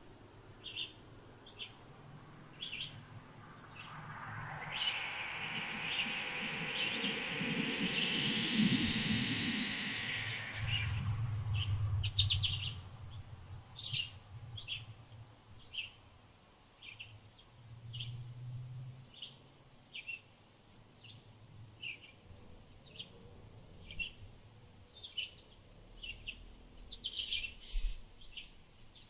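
Wild birds calling outdoors with short repeated chirps, about one or two a second, over a steady fast insect ticking. A broad rushing swell of noise rises from about four seconds in and fades around eleven seconds, and a single sharp click sounds near the middle.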